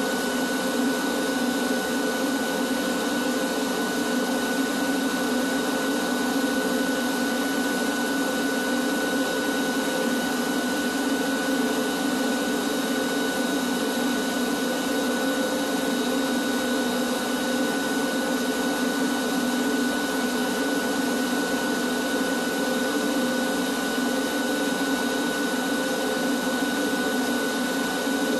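Canister shop vacuum running steadily, a constant motor whine over rushing air, as its hose sucks dust off the ceiling beams.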